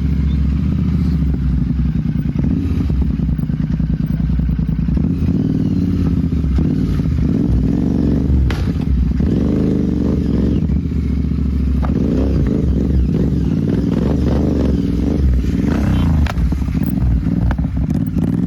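Royal Enfield Continental GT 650's parallel-twin engine running at low revs, its pitch rising and falling as the throttle is worked, with a few sharp knocks along the way.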